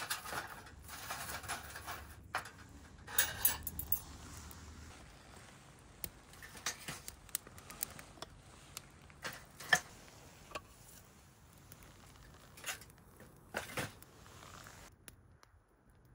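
Handling of an electric heated vest and its USB cable: nylon fabric rustling for the first few seconds, then scattered sharp clicks and taps as the cable is taken out of the pocket and plugged into a mobile battery.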